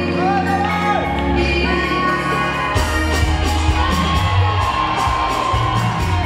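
Loud dance music over a hall sound system: held notes under a gliding vocal line, then a driving beat kicks in about three seconds in.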